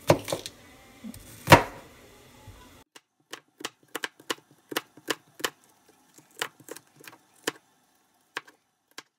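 Serrated kitchen knife slicing an onion into thin strips on a plastic cutting board: a run of short knocks as the blade meets the board, one louder knock about a second and a half in.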